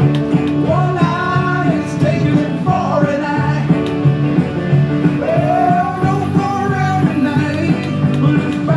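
Rock music playing: guitars over a steady beat, with a singing voice carrying the melody.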